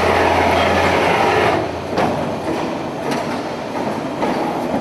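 CNC hydraulic folding machine running: a steady low hum that stops about a second and a half in, over continuous mechanical clatter with a few short knocks.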